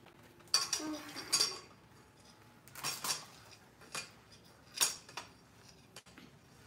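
A metal utensil scraping and clinking against a stainless steel mixing bowl as a thick, lumpy powder-and-water chalk mixture is stirred: a run of short scrapes in the first second and a half, then single strokes about a second apart.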